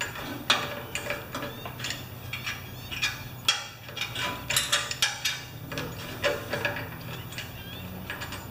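Irregular small clicks and rattles of hands working wires and a cable connector into an air compressor's electrical fittings, over a steady low hum.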